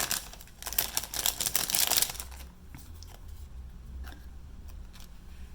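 Packaging crinkling as it is handled, for about two seconds, then only a few faint rustles and clicks.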